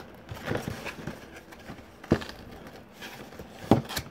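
Cardboard controller box being handled and turned over, with a few sharp knocks and light rustling.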